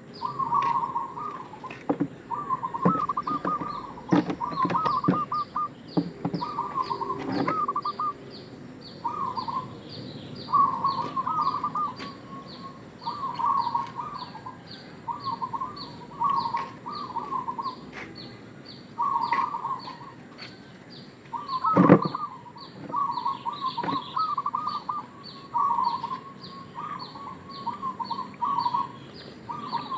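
Zebra dove (perkutut) singing its cooing song: short phrases of quick, staccato coo notes, repeated about every second and a half. Behind it runs a steady high chirping, a little under twice a second, and there is one sharp knock about two-thirds of the way through.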